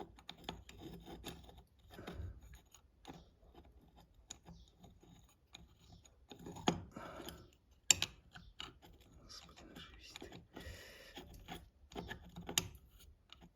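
Metal housing and back cover of an SS-1 signal siren being handled and screwed back together: scattered clicks, scrapes and rubbing of metal parts, with sharper knocks about eight seconds in and near the end. The siren itself is not running.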